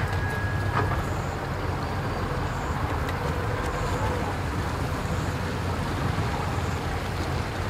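Steady low rumble of idling engines at a boat ramp, with a brief thin whistle-like tone near the start.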